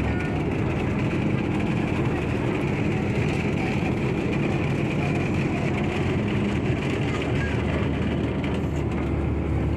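Steady low drone of a bus engine running as the vehicle drives, under an even hiss of rain.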